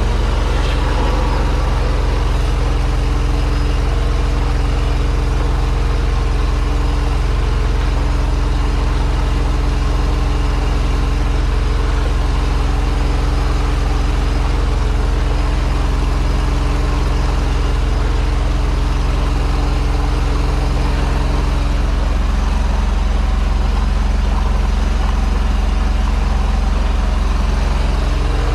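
High-pressure sewer jetter's engine and pump running steadily under load, a constant heavy drone with a hiss over it while the jet works on the blocked drain.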